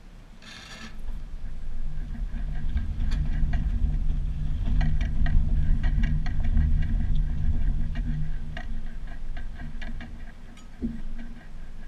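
Jet ski on a trailer being towed by a pickup truck: a low rumble from the truck and the rolling rig that builds over the first couple of seconds and holds, with many sharp rattling clicks from the trailer and hull. A brief high squeal about half a second in.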